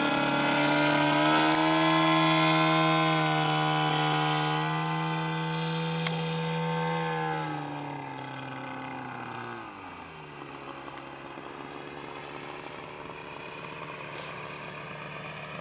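Engine and propeller of a large radio-controlled An-2 model biplane in flight, a steady buzzing note. A little past halfway it drops in pitch and gets quieter, then settles on a lower, steady note.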